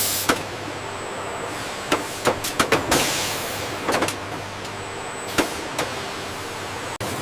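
Factory machinery running steadily, with irregular sharp clanks and clicks throughout and a brief hiss about three seconds in.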